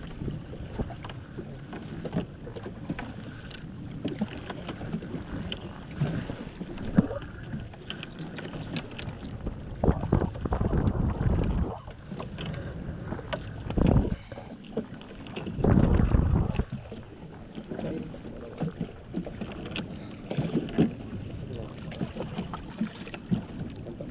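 Work aboard a small fishing boat as a weighted fishing net is hauled in: irregular knocks and thuds against the boat, with heavy gusts of wind on the microphone, the loudest about ten and sixteen seconds in.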